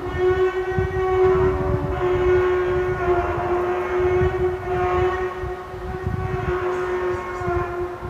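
A loud, sustained horn-like drone of steady pitch, with overtones that shift slightly, over a rough low rumble: the unexplained sound heard in the sky.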